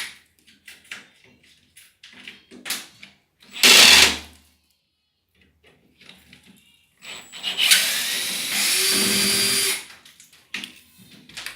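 Power drill run in short bursts, about half a second just before four seconds in and then about three seconds in the second half, with small knocks and clatter of tools and parts in between, as the rusted machine casing is taken apart.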